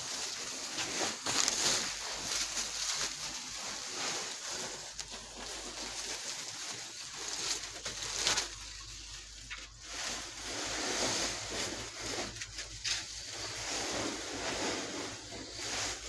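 Woven plastic feed sheet and sacks rustling and crinkling as a heap of poultry feed pellets is shaken and turned by hand to mix in sugar, the pellets shifting and sliding. A steady rustling hiss with scattered crackles.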